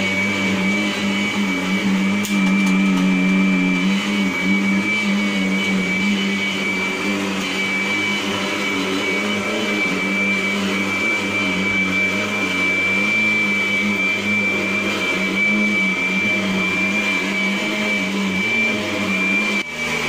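Vacuum cleaner running steadily with its mattress-cleaning head on a bed mattress: a constant motor hum under a high, steady whine, with a brief dip near the end.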